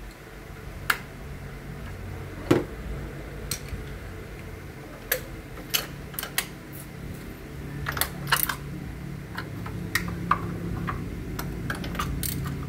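Irregular sharp metallic clicks and clinks of hand tools and small parts being handled during work on the engine, about fifteen of them and busier in the second half, over a low steady hum.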